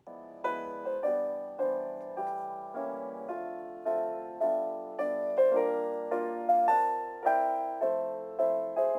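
Background music: a soft piano melody, notes struck about once or twice a second and each left to ring and fade.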